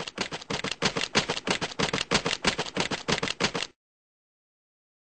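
Clicking sound effect for a logo animation: a fast, even run of sharp clicks, about eight a second, that stops suddenly about three and a half seconds in.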